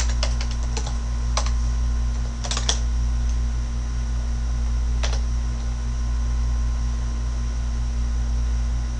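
Computer keyboard keys being typed in a few short runs, then a single keystroke about five seconds in, over a steady low hum.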